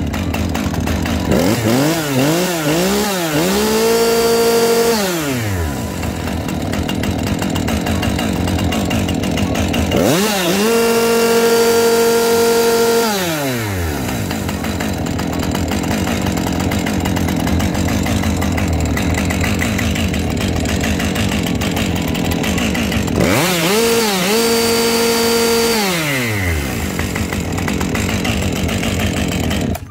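Husqvarna 550XP Mark II two-stroke chainsaw running at idle and revved to full throttle three times, each rev held a couple of seconds before the engine drops back to idle. The first rev wavers up and down a few times before it holds.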